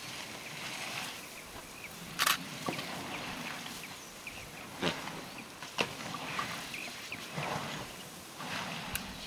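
African elephants scratching against a tree trunk and throwing dirt over themselves: faint rustling and scuffing, with three sharp knocks about two, five and six seconds in.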